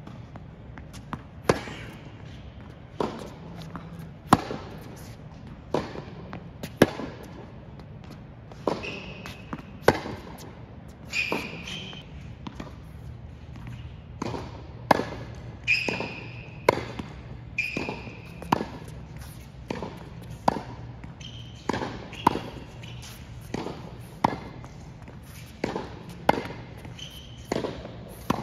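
Tennis ball struck by a racquet again and again in a feeding drill, a sharp hit about every second or so, with ball bounces on the hard court. Short high squeaks between some of the hits are tennis shoes on the court surface.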